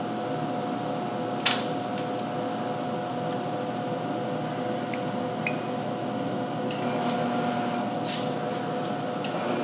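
Steady electrical and fan hum of a Branson ultrasonic cleaning system's equipment, with a constant mid-pitched tone. A sharp click comes about a second and a half in, a few faint ticks follow later, and a lower steady tone joins about seven seconds in.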